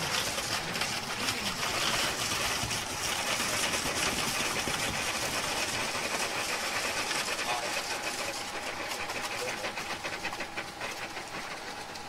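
Concrete pump working steadily as concrete is pumped through the boom hose into insulated concrete forms: a continuous mechanical hiss that eases slightly near the end.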